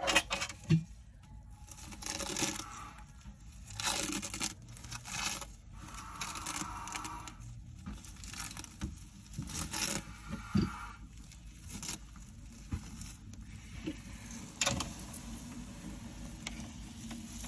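A python's papery shed skin being pulled and torn off by hand, crackling and rustling in a series of short bursts.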